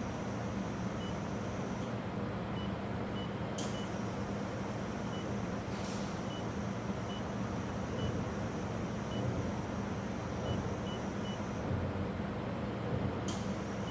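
Steady machine hum with a noisy wash and a low drone, and a thin high whine that comes and goes. Sharp clicks sound at about 3.5 s, 6 s and 13 s, and faint short high beeps recur now and then.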